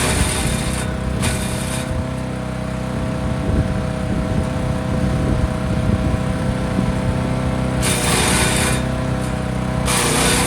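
Forest Master FM8DD wood chipper running steadily, with bursts of loud crunching and shredding about a second in, about eight seconds in and again near the end as branches are chewed through; the engine note dips slightly under each load.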